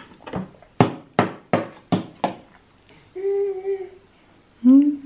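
About five quick, sharp taps roughly a third of a second apart, then a voice humming 'mm': a short steady hum, and a longer one near the end that wavers and rises.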